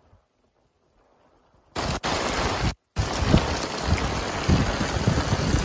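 Heavy downpour with gusting wind buffeting the microphone, a loud even rush with irregular low thumps. It starts abruptly about two seconds in after a quiet start, and cuts out briefly near the three-second mark.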